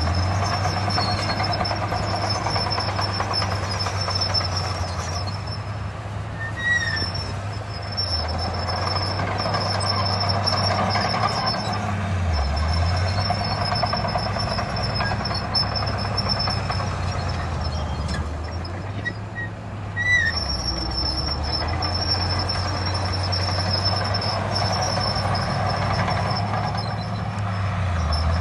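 Heavy diesel earthmoving machinery running continuously, the engine note dipping briefly about five times as the load changes, with a steady high-pitched tone above it and a couple of short squeaks.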